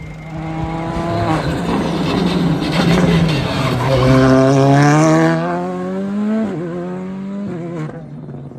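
Rally car engine revving hard as the car approaches at speed, its note climbing and breaking at the gear changes. It is loudest with a rush of tyre noise as it passes closest, about four to five seconds in, then the engine note drops and fades away.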